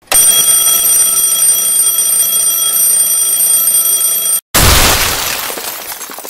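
A twin-bell alarm clock ringing steadily for about four seconds, cut off abruptly. A moment later comes a sudden explosion and shattering, with scattered clinking as it fades over about two seconds.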